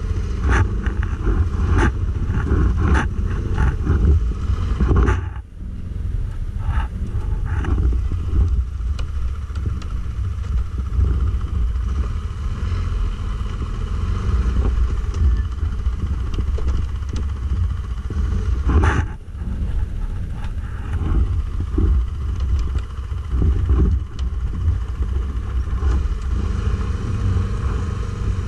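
Stels Guepard 850 ATV engine running under load off-road. It rises and falls with the throttle, with frequent knocks and rattles in the first few seconds, and twice drops away briefly, about five seconds in and again near twenty seconds.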